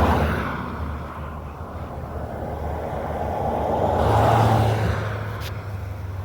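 Road traffic going by: one vehicle fades away at the start, and another swells up and fades again about four seconds in, over a steady low rumble.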